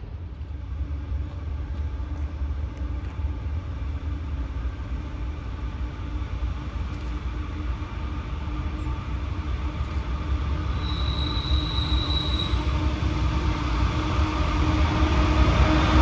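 Train approaching, its low rumble growing steadily louder, with a brief high squeal about eleven seconds in.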